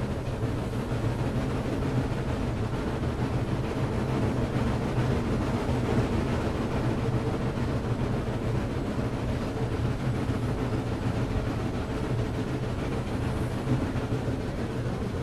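Excursion train on the move, a steady, even rumble with no distinct beats or whistles.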